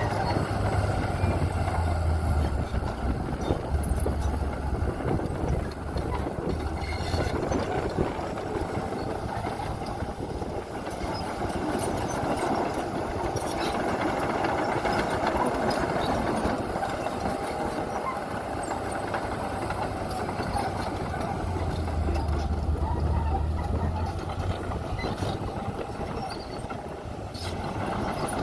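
Heavy earthmoving machinery, a bulldozer or dump truck, running steadily with a low engine rumble. A few short knocks are heard, around a third of the way in, near the middle and near the end.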